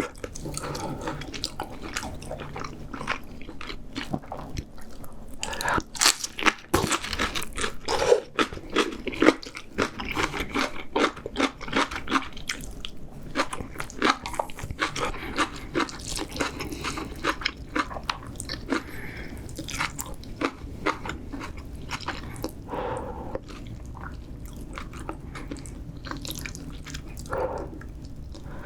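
Close-miked eating sounds: a person chewing and biting into spicy seafood ramyeon with shellfish and kimchi. There are many irregular crisp crunches and wet mouth clicks, loudest around a quarter of the way in.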